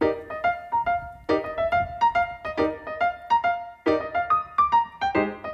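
Background music: a light melody of short struck notes over repeating chords.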